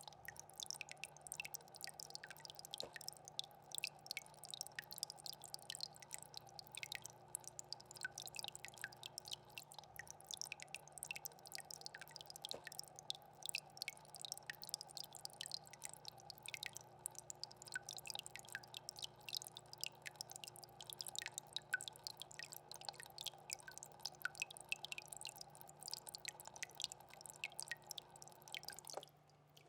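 Fish tank water trickling: a steady patter of small drips and splashes over a constant low hum from the tank's pump or filter, stopping abruptly near the end.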